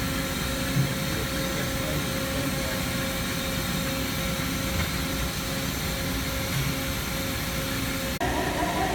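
Hyundai Kia T-type CNC horizontal boring mill running, a steady machine hum with a steady whine over it. The sound changes abruptly about eight seconds in.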